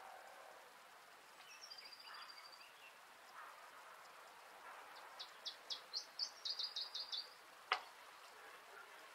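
Birds chirping: a short high trill about a second and a half in, then a quick run of high chirps past the middle. A single sharp click comes near the end.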